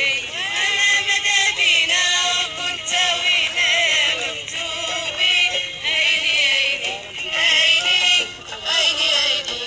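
Music: a song with a wavering, ornamented singing voice that sounds electronically processed.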